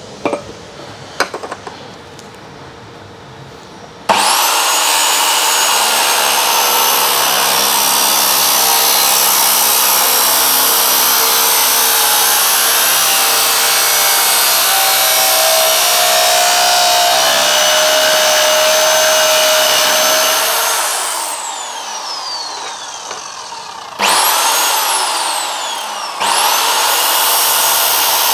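A few sharp clicks, then a handheld electric grinder is switched on about four seconds in, spinning up to a high whine as it grinds metal. It runs steadily for about seventeen seconds and then winds down. It is switched on again twice near the end, with a short break between.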